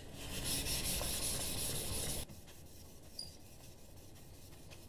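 Steel card scraper rubbed back and forth on a wet 5000-grit water stone: a gritty rubbing hiss of the polishing stage. It stops abruptly a little over two seconds in.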